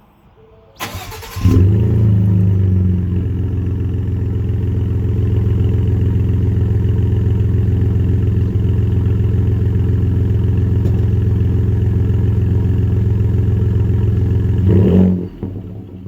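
Ford F-150 2.7L EcoBoost twin-turbo V6 through a Roush cat-back exhaust, hot-started: the starter cranks briefly about a second in, the engine catches with a flare and settles into a steady idle. Near the end it is revved once, rising and falling quickly.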